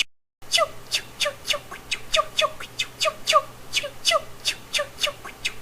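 A person's mouth-made sound effect: a rapid run of short, squeaky pitched chirps, about four a second and often in pairs. The sound drops out for a moment just at the start.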